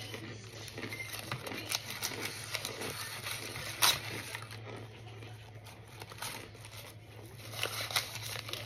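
Dense, irregular crunching and crackling of oven-baked cornstarch chunks being chewed close to the microphone, with one sharper crack about four seconds in, over a low steady hum.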